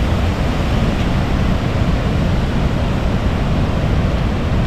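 Waterfall's falling water, a loud, steady rushing noise.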